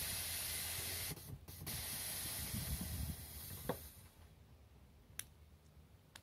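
Air suspension letting air out as the car lowers: a steady hiss that breaks off briefly about a second in and stops about four seconds in, with a single click shortly before it ends.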